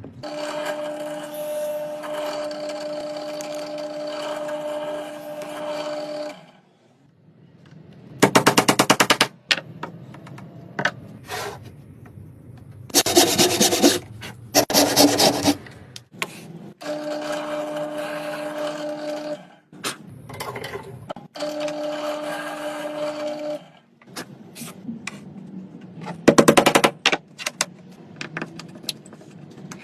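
Workshop power tools at work in turns: a steady motor tone held for a few seconds at a time, three times, alternating with short bursts of rapid rattling strokes, each lasting about a second.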